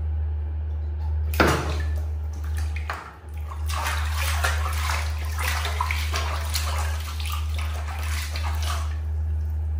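Water splashing in a plastic tub, a hand scooping and throwing it over and over, starting suddenly about a second in. A steady low hum runs underneath.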